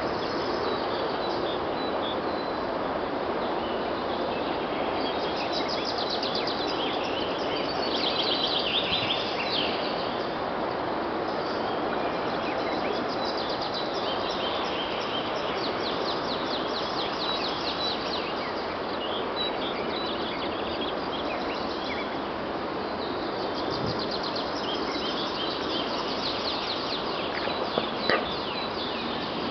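Woodpecker drumming on a steel angle bar, heard from a distance as runs of rapid high metallic rattles. The rolls come and go over a steady outdoor background noise, with a brief louder knock near the end.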